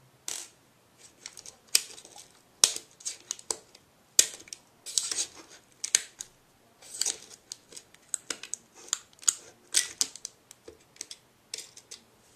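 Small items being handled and packed into a thin metal Altoids tin: irregular clicks, taps and short scrapes against the tin, a few sharper clicks standing out.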